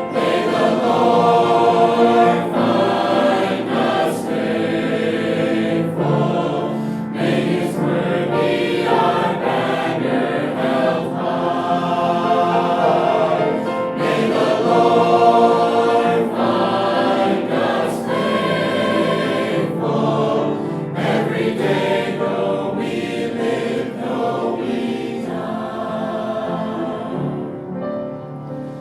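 Music: a choir singing a gospel song.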